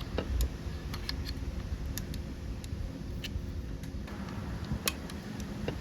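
Scattered light clicks and taps, about ten in all at uneven spacing, from hand tools and small parts being handled while working on a bus AC compressor's shaft seal. They sit over a low steady hum.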